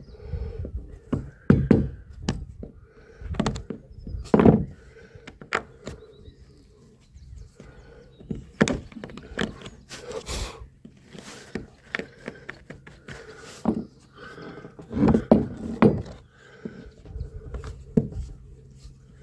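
Irregular knocks and thuds of hand tools working on wooden deck covering boards while screws are being removed, with a faint steady hum underneath.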